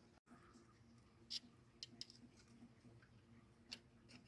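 Near silence broken by a few faint metal clicks as a connecting rod cap and its bearing shells are handled.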